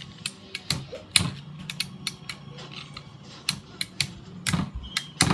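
Plastic Beyblade spinning tops clashing in a battle stadium: rapid, irregular clicks and knocks over a low steady hum.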